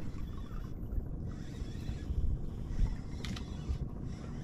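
Steady low rumble of wind and sea around a small open fishing boat, with a couple of light clicks a little past three seconds in.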